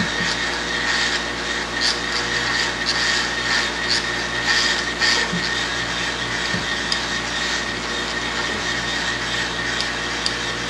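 Small bench milling machine's spindle motor running steadily while a 0.1865 in reamer is fed into a drilled hole in a steel crank-disc blank, with intermittent scraping from the reamer cutting.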